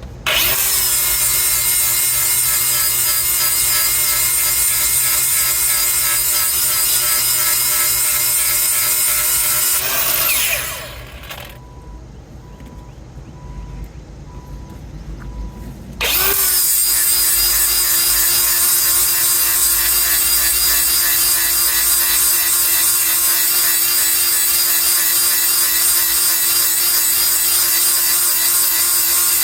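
Handheld power grinder running steadily as it grinds the worn teeth on the mill of a Bandit Beast 4680 grinder to sharpen them. About ten seconds in it winds down, and a few seconds later it starts up again quickly and runs on.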